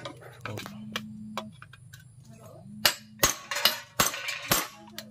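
Sharp knocks as a steel punch is driven through a thin copper sheet on a wooden block to make holes, with the thin sheet crinkling between strokes. The knocks come about five times in quick succession in the second half.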